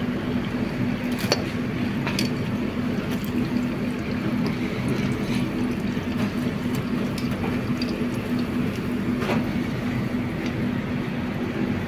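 Battered enoki mushrooms sizzling in deep-fryer oil, a steady crackling hiss over a constant low hum, with a few sharp clicks.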